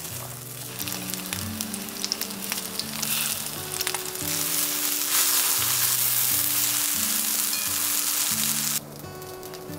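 Food sizzling as it fries in a pan, with scattered pops in the first few seconds. The sizzle grows louder about four seconds in and cuts off suddenly near the end.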